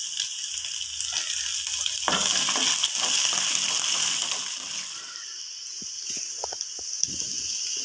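Green chillies, cashews, ginger and chana and urad dal sizzling in hot sesame oil in an aluminium kadai, stirred with a wooden spatula, with a few light knocks of the spatula against the pan in the second half.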